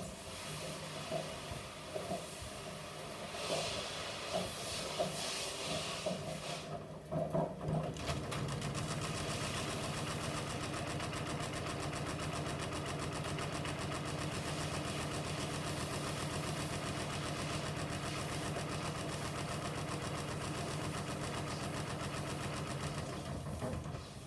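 Electrolux washing machine on its spin cycle. For the first several seconds the drum runs unevenly with irregular knocks, then about eight seconds in it settles into a steady, even running sound.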